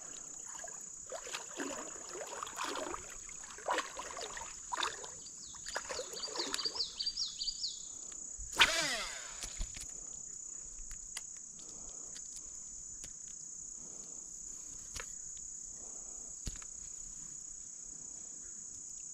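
Steady high-pitched insect chorus, like crickets. Scattered faint knocks and rustles in the first half, and one brief louder sweeping sound about eight and a half seconds in.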